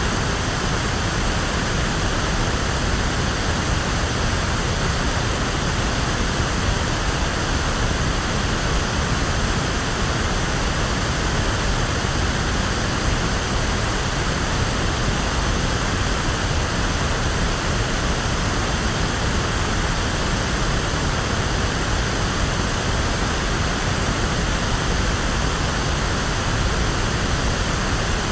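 Electronically generated pink noise: a steady, even hiss, fuller in the low end than white noise, unchanging throughout.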